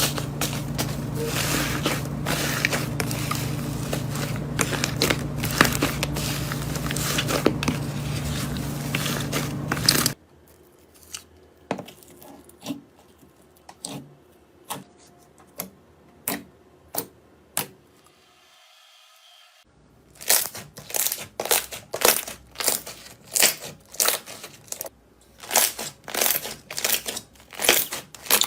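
Slime being squeezed and poked by hand, making crackling, crunchy popping and clicking sounds. The first part is a dense crackle over a low hum. After about ten seconds it turns to quieter, scattered clicks and pops, and near the end to crisp pops about twice a second.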